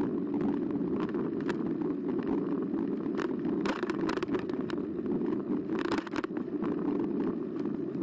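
Carbo X eBike being ridden along a path: a steady low hum of motor, tyres and moving air, with scattered small clicks and rattles from the bike going over bumps, heaviest about three to four seconds in and around six seconds in.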